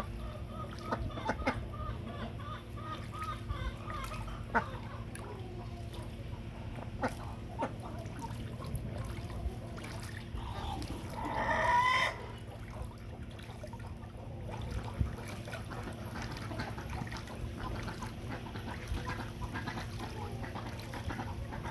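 Domestic fowl calling: a run of quick repeated notes in the first few seconds and one loud, longer call about halfway through, over a steady low rumble.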